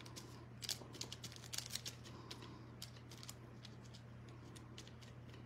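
Faint, scattered light clicks and taps of craft supplies being handled, about a dozen in the first three seconds or so, over a low steady hum.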